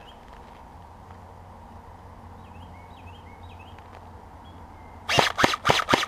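Small birds chirping in short repeated calls over a quiet outdoor background; about five seconds in, a quick run of five or six loud, sharp noises close to the microphone, lasting about a second.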